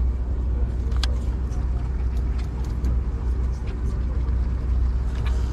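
Charter fishing boat's engine running steadily with a low drone, and a sharp click about a second in.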